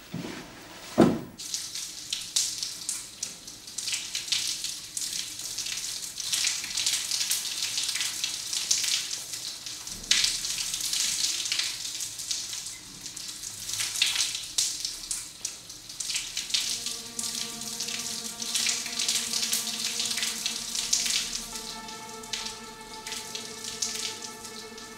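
Shower spray hissing and spattering steadily onto a man and a tiled floor, after a single thump about a second in. Soft sustained music notes come in under the water about two-thirds of the way through.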